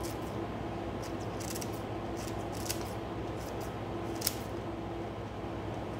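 Kitchen scissors snipping iceberg lettuce leaves: a string of short, crisp snips at irregular intervals, the loudest about four seconds in.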